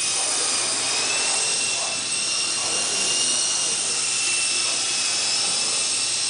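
GWS Mini Dragonfly electric micro RC helicopter in flight, its motor and rotors making a steady high whine that wavers slightly in pitch.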